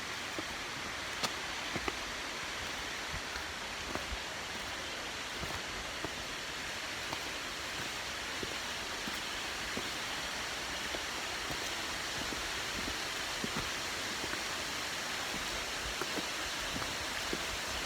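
Steady rush of a waterfall, an even hiss of falling water with a few faint scattered ticks.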